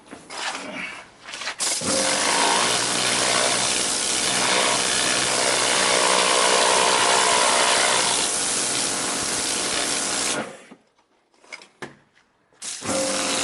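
Karcher K7 Premium Full Control pressure washer spraying: a loud steady hiss of the jet over the pump motor's hum, after a few short bursts at the start. It stops for about two seconds near the end, then starts again.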